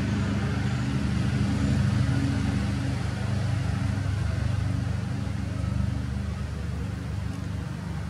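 A motor running steadily, giving a low, even hum that swells slightly about two seconds in and then eases.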